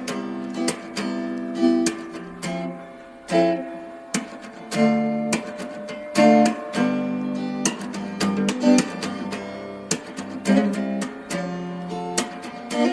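Acoustic guitar music: strummed chords with quick plucked notes between them.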